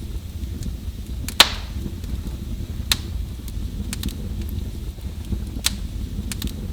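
Wood fire in a fireplace crackling: sharp pops every second or so over a steady low rumble, the loudest pop about a second and a half in.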